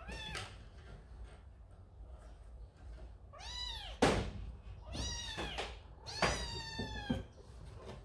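Young kitten crying for its mother cat: four high-pitched meows, the second arching up and then down in pitch, the last one the longest. A single sharp tap about halfway through.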